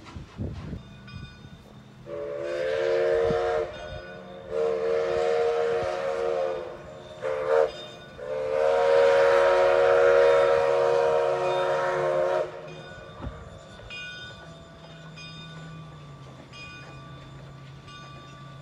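Steam whistle of an Alco 2-6-2 steam locomotive blowing two long blasts, one short and one long: the standard grade-crossing signal. The last blast is the longest, about four seconds.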